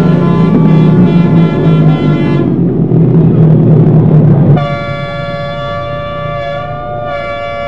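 Speedway motorcycles' single-cylinder engines racing loudly on the dirt oval, cutting off suddenly a little over halfway through. A steady held chord of several tones follows, like a horn or a brass fanfare.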